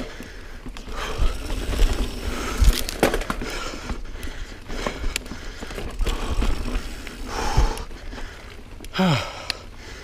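Niner Jet 9 RDO full-suspension mountain bike ridden over sandy dirt singletrack: tyres rolling on dirt with a low rumble, and the bike knocking and rattling over bumps and roots. Near the end there is a short falling pitched sound.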